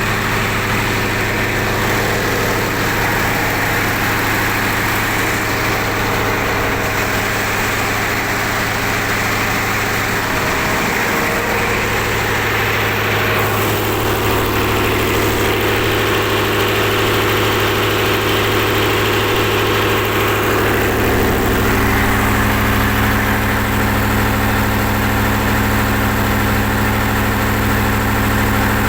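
Mitsubishi 8DC11 V8 diesel engine of a 300 kVA generator set running steadily. Its note changes about halfway through, and again about two-thirds of the way through, where it grows slightly louder and deeper.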